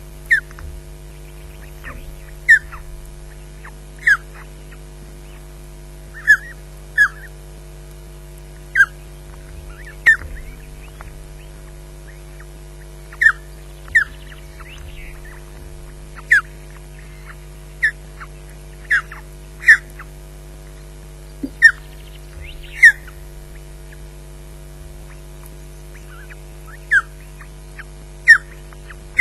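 Osprey calling from the nest: a string of short, sharp chirps, each dropping slightly in pitch, repeated every second or two. A steady low electrical hum runs underneath.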